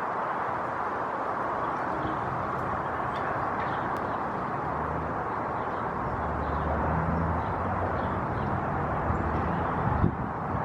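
Steady outdoor background noise of distant road traffic. A lower engine rumble swells for a few seconds about halfway through, as of a vehicle passing, with faint high bird chirps now and then.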